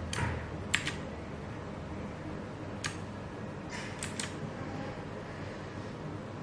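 A handful of sharp, scattered clicks from keys being pressed one at a time on an Altec Lansing ALGK-8404 mechanical keyboard with clicky Blue switches. There is a pair about a second in, one near the middle and a quick run of three a little later, over a steady hiss.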